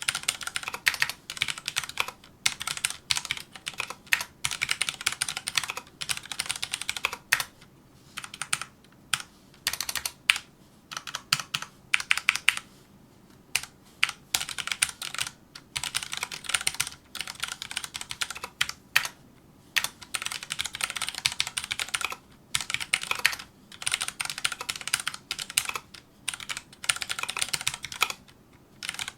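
Fast touch-typing on a Filco Majestouch2 mechanical keyboard with Cherry MX Brown switches: rapid runs of key clacks broken by short pauses between words and phrases.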